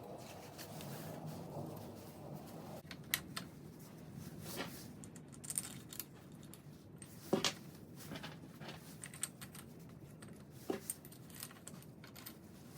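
Scattered light clicks, taps and metallic clatter of hand work on a scooter and its maintenance stand, with a few sharper knocks a little after three seconds, midway and near the end.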